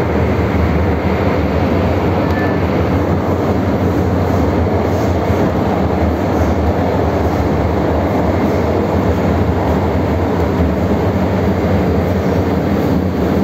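Steady, loud running noise of an MTR M-Train heard from inside the car: the rumble of wheels on rail and traction equipment of a 1979 Metro-Cammell electric multiple unit running through the Island Line tunnel.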